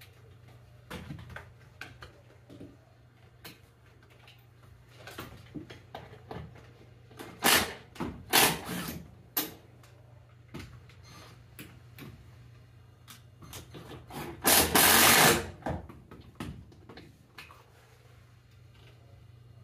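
Hand work among basement floor joists: scattered clicks, knocks and rustling scrapes, with a cluster of louder scrapes about eight seconds in and the loudest, longest scrape around fifteen seconds in, over a steady low hum.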